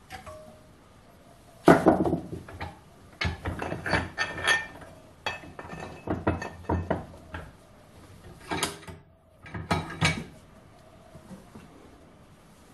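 Irregular metal clanks, knocks and rattles of a cut aluminium alloy wheel-rim section being handled and re-clamped in a steel bench vise. The loudest knock comes about two seconds in, with further bunches of clatter through the middle and a last pair of knocks near the end.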